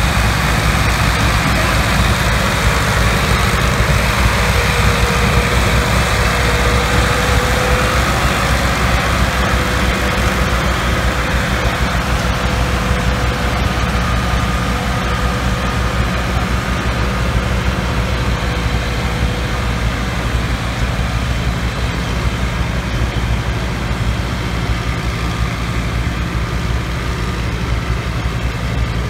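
Diesel engines of two Massey Ferguson tractors running hard under load, hauling a heavily loaded trolley through soft field ground. The steady, low engine drone carries a thin whine above it and eases slightly toward the end.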